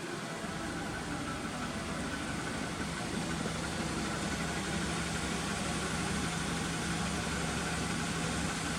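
Honda Integra Type S (DC5) K20A four-cylinder engine idling steadily through an aftermarket exhaust, getting a little louder about three seconds in and then holding even.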